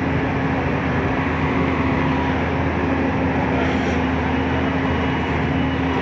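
Tracked excavator's diesel engine running steadily while it works its bucket, a continuous loud drone with a constant low hum.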